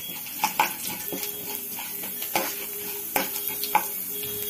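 Metal spoon stirring chana dal and mustard seeds in hot mustard oil in a metal frying pan: several sharp clinks of the spoon against the pan over a steady faint sizzle.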